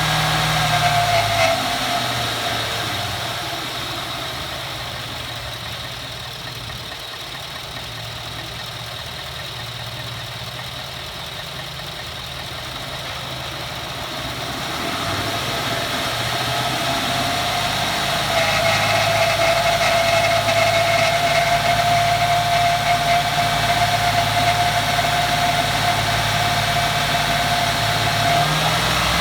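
Ford F-150 engine revved with the hood open: it drops back to idle about two seconds in, rises again around the middle, holds raised revs for about ten seconds, then falls back near the end. A steady high-pitched tone rides on the engine only while it is revved. This is the noise the owner calls a grinding that sounds like nails on a chalkboard under acceleration.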